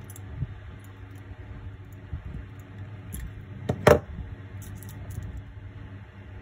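Faint clicks of pliers working a clear plastic rod, then a single sharp clack just before four seconds in as the pliers are set down on a cutting mat, over a steady hum.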